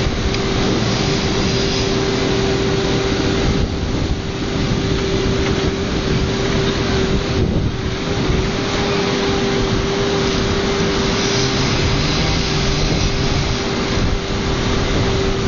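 Engine running steadily at one unchanging pitch, with a loud, even noise around it.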